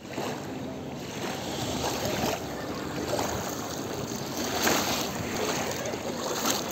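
Bare feet wading through shallow sea water, a small splash at each step about once a second, over the steady wash of small waves.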